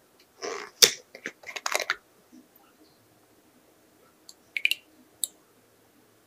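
Plastic screw cap of a drinkable yogurt bottle twisted open. A short rustle, then a sharp crack and a run of small crackling clicks as the seal breaks, about a second in. A few light clicks follow a few seconds later.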